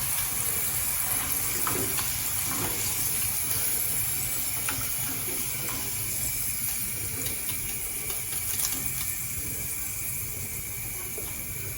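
Potato pieces frying in hot oil: a steady sizzle with scattered small crackles, easing slightly toward the end.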